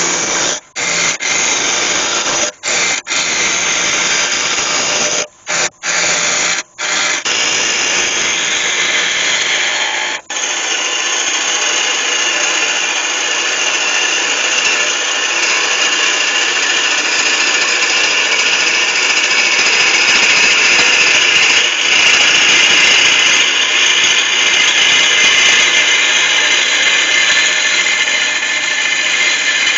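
Lathe chisel cutting into a spinning oak blank on a wood lathe: a steady, dense hiss of shaving, broken by several short gaps in the first seven seconds. After that it runs unbroken and grows a little louder and brighter as a parting tool cuts a groove into the cylinder.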